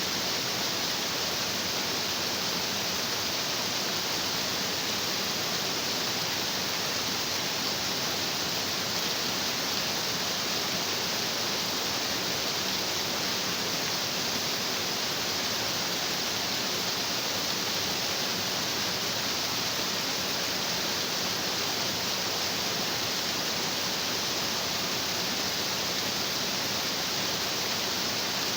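A stream of water rushing steadily over rocks, an even, unbroken wash of sound with no change in level.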